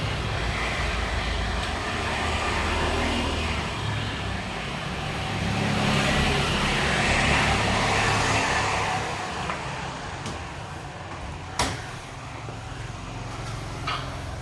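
Road traffic noise, with a vehicle passing: the rumble swells about halfway through and then fades. A sharp click sounds near the end.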